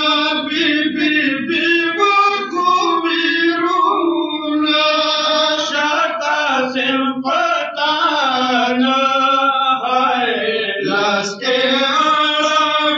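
Men's voices chanting a Pashto noha, a Shia mourning lament, in long held phrases with a rising and falling melody.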